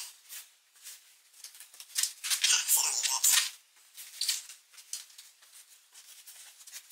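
A cloth towel rubbed in quick strokes over the powder-coated face of a BBS alloy wheel, wiping off ceramic coating that has flashed. It is a series of scratchy swishes, the longest and loudest about two to three and a half seconds in.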